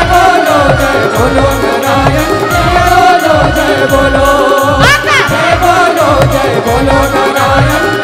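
Live Chhattisgarhi folk music: a woman singing through a stage microphone over a steady beat of hand drums and electronic keyboard, with a quick rising glide about five seconds in.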